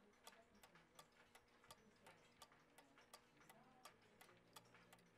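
Faint, steady ticking of a mechanical clock, about three ticks a second.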